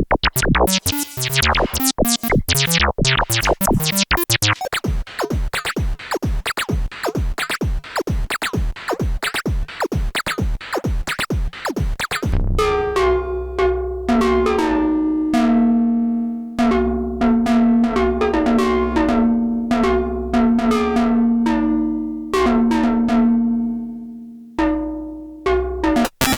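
Dreadbox Typhon monophonic analog synthesizer playing a factory preset: a fast run of short, plucky sequenced notes. About halfway through the sound changes to slower pitched notes with decaying tails over a low held bass.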